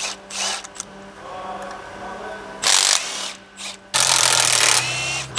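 Compact cordless impact wrench running on the balance-shaft housing bolts under a Toyota 5S-FE four-cylinder: a short burst a little over halfway through, then a longer run of more than a second near the end.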